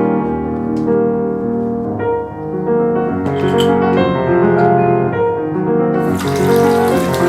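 Background piano music, slow held notes. About six seconds in, a steady hiss joins it.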